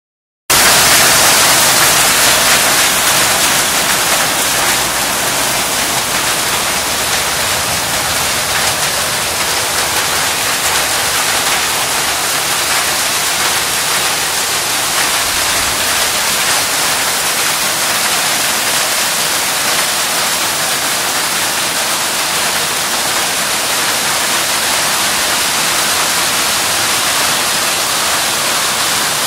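Hailstorm: hailstones and heavy rain pelting a wet, flooded road and parked car, a dense steady hiss, a little louder in the first few seconds.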